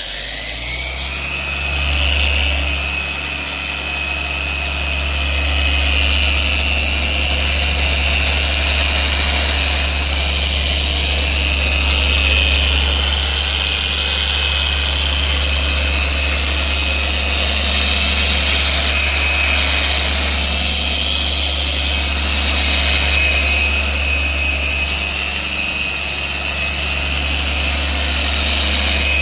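Random orbital buffer with a coarse foam pad running steadily, polishing black wax into a faded powder-coated steel post: a constant motor whine over a deep hum.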